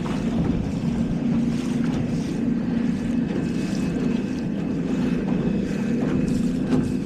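Steady wind noise buffeting the microphone, with water rushing along the hull of a small sailboat under sail.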